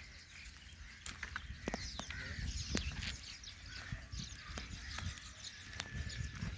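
Sheep flock ambience: animals shuffling and moving, with scattered sharp clicks and short high chirps over a low rumble.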